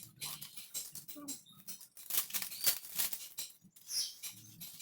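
Irregular rustling, scratching and light clicks of packaging being handled and pulled off.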